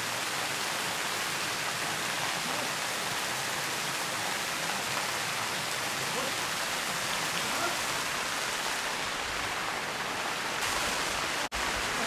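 Steady rush of water from several spouts of a shrine waterfall pouring into a shallow pool below a rock face. The sound cuts out for an instant near the end.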